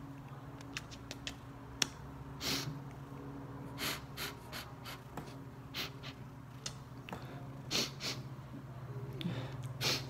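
A man crying: sharp sniffles and gasping breaths every second or two, with a few small kissing clicks in the first two seconds, over a steady low hum.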